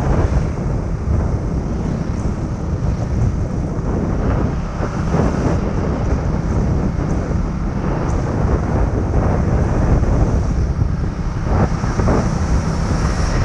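Wind buffeting the microphone while riding along a road in the open air, over a steady engine and road-noise rumble.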